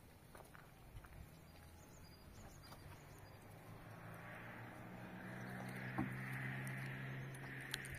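A low, steady motor hum that grows louder over the second half, with a hiss above it and a few sharp clicks.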